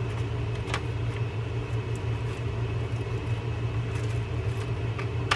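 A steady low mechanical hum, with a few faint, light clicks of small reel parts being handled.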